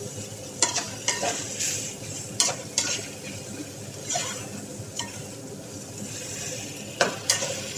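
Stainless steel spoon stirring sliced onions frying in oil in a metal pan: the oil sizzles steadily while the spoon scrapes and clacks against the pan at irregular intervals, roughly once a second.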